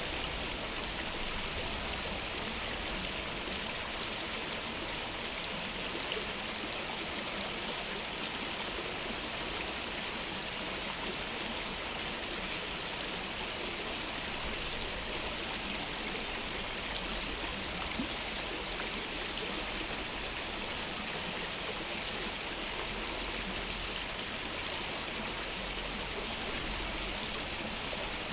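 A small stream running steadily: an even rush of flowing water with no distinct events.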